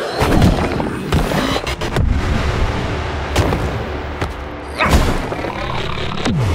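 Cartoon fight sound effects: booms and heavy impacts over background music, with a sound sliding steadily down in pitch near the end.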